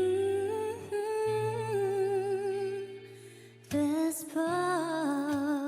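A woman singing a slow ballad in long held notes with vibrato, over a soft accompaniment with a steady low bass; the music drops away briefly about three seconds in, then the voice comes back in.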